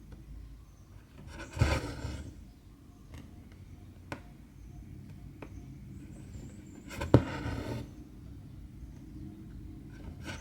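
Cross-stitch needle and two strands of cotton thread pulled through 14-count fabric: twice a sharp tap as the needle goes through, followed by a short rustling draw of the thread, with a few faint ticks between.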